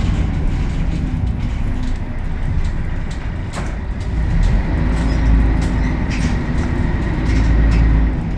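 Scania L113CRL bus's rear-mounted 11-litre six-cylinder turbo diesel heard from inside the cabin while driving, with a low rumble that grows louder about halfway through. Scattered light clicks sound over it.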